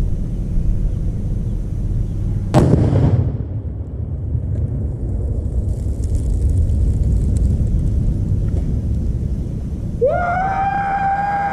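A single loud blast about two and a half seconds in: a .308 rifle round setting off Tannerite taped to an old vacuum cleaner. A steady low rumble runs under it. Near the end a held tone about two seconds long rises, holds and falls away.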